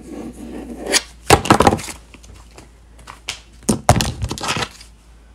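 A folding knife cutting excess foam clay away from a styrofoam form, with sharp clicks and knocks as the knife and clay are handled on a plastic cutting mat. They come in two clusters, about a second in and again around four seconds in.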